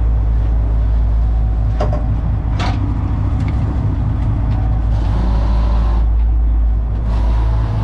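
Commercial lobster boat's engine running steadily underway, a deep continuous drone, with two short knocks about two to three seconds in.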